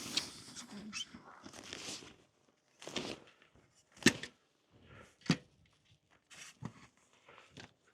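RV cover straps being pulled out from under a travel trailer: rustling in the first couple of seconds, then three sharp clacks about a second apart and a few fainter ticks.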